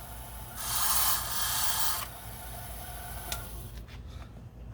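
Freshly cut key held against the spinning deburring brush of a Silca Mobile key-cutting machine: a harsh brushing rasp that drops briefly at the start, comes back loudly for about a second and a half, then fades about three seconds in, leaving the machine's motor humming.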